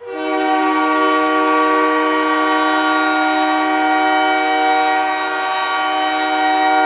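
Arena hockey goal horn sounding one long, steady, loud blast: a goal-scored signal.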